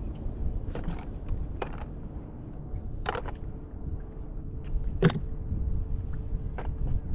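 Scattered knocks and clicks on a fishing boat, the loudest about five seconds in, over a low rumble, with a steady hum coming in about three seconds in.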